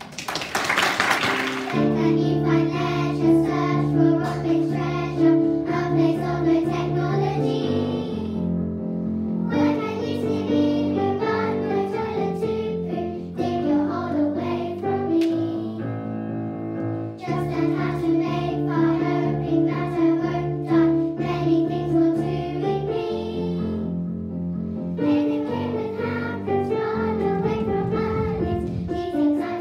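A group of young girls singing a song together over an instrumental accompaniment with chords and a bass line. A short loud burst of noise opens the sound before the music settles in.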